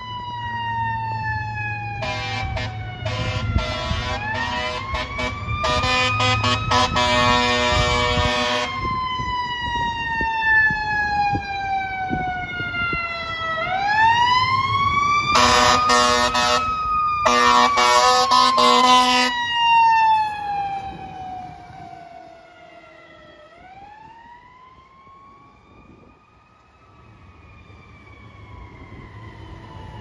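Fire truck siren that winds up for about two seconds and then slowly falls, three times over, with five blasts of the truck's air horn, the longest nearly three seconds. The truck's engine rumbles low under it, and the sound fades as the truck moves away before rising again near the end.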